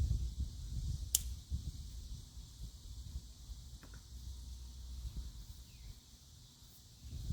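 Outdoor ambience: a steady high hiss over a low rumble, with one sharp click about a second in.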